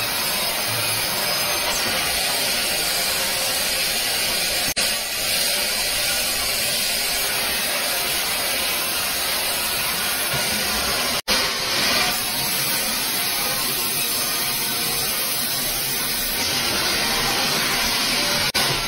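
Horizontal band sawmill blade cutting lengthwise through a log: a steady hissing noise, broken three times by very short gaps.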